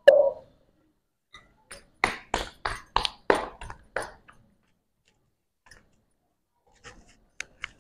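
A dull knock at the start, then about seven sharp slaps in two seconds as a rolled-out roti is slapped from palm to palm, and a few faint clicks near the end.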